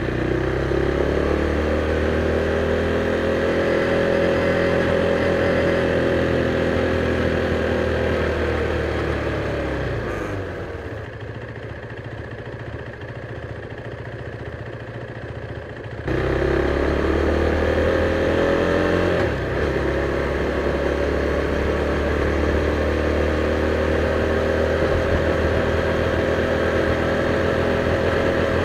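KTM Duke 390's single-cylinder engine with stock exhaust, running under steady throttle, then easing off to idle about ten seconds in. After several seconds of idling it pulls away hard with rising pitch. The pitch dips briefly a few seconds later, then holds steady at a cruise.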